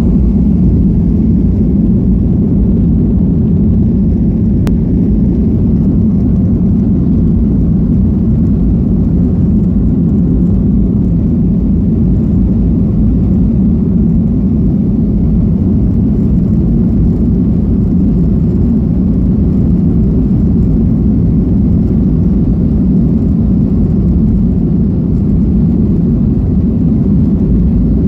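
Boeing 737 jet airliner during takeoff: a loud, steady low rumble of engines and airflow that holds level throughout.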